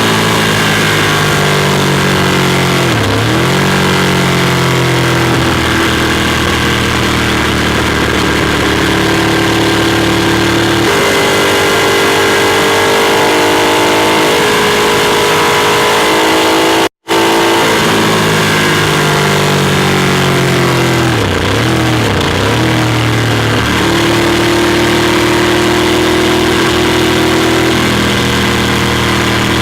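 Ducati Monster 821's Testastretta L-twin engine heard onboard while riding, mostly holding steady revs. The revs drop sharply and climb back about 3 s in and twice in quick succession past the middle, and the sound cuts out briefly about 17 s in.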